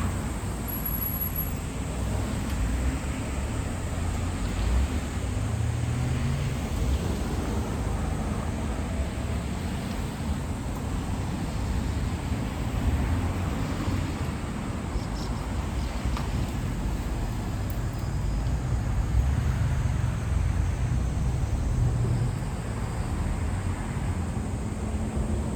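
Steady low rumble of outdoor ambience, like distant road traffic, with a faint hiss above it.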